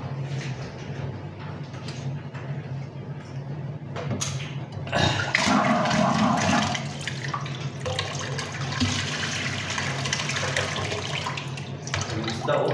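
A rush of water-like noise sets in about four seconds in, loudest for a couple of seconds and then easing but carrying on, over a steady low hum.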